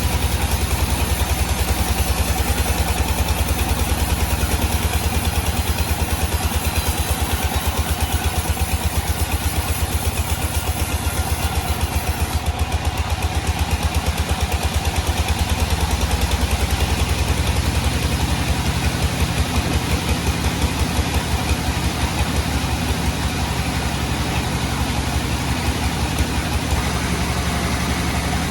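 A sawmill's engine running steadily for the whole stretch, with a fast, even low throb.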